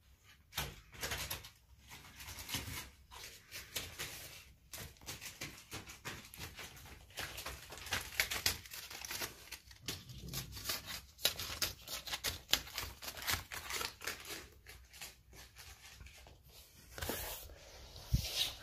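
Adhesive paper stuck to a cat's paws crackling and peeling off a wooden floor as the cat walks, an irregular run of sticky crackles and tearing sounds, with a louder burst near the end.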